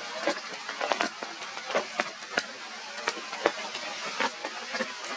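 Steady rain hissing, with irregular sharp ticks of drops striking something hard, about two or three a second.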